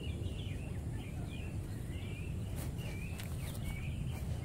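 Small birds chirping over and over in short notes that rise and fall in pitch, over a steady low rumble. A few light clicks come in the second half.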